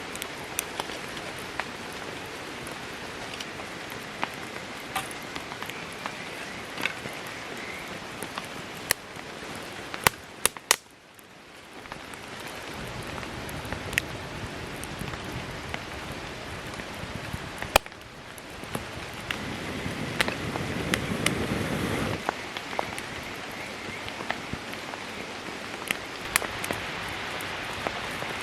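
Wood fire crackling in a small fire pit, with frequent sharp pops over a steady hiss. The sound drops away briefly twice, about a third of the way in and again past the middle.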